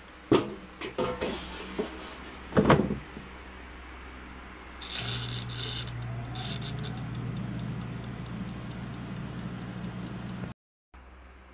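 Hanabishi 7-litre air fryer: a few knocks and a clatter as the loaded basket goes in. About five seconds in, the timer knob is turned with a brief crackling rattle, and the fan starts with a steady hum.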